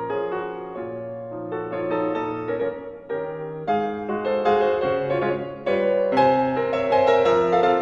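Piano music: a melody of changing notes and chords over held bass notes.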